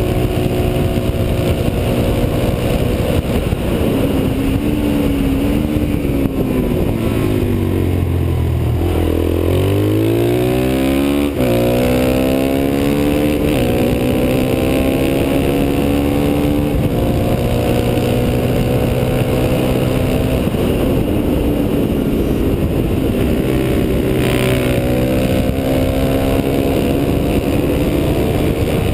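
Suzuki DR-Z motorcycle's single-cylinder four-stroke engine run hard on track. Its pitch drops about a third of the way in as the rider slows for a corner, then climbs through the gears and holds high. It dips and rises again near the end.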